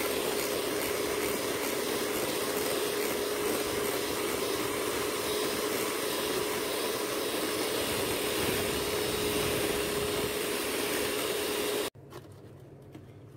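Electric hand mixer running at a steady speed, its beaters whipping Dream Whip powder and milk into a fluffy cream in a glass bowl. It gives a steady motor whine over a rushing noise that cuts off abruptly near the end.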